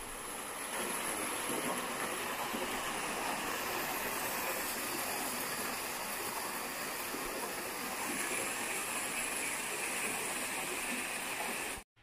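Stream water pouring over a small weir and churning in the pool below, a steady rushing. It stops abruptly near the end.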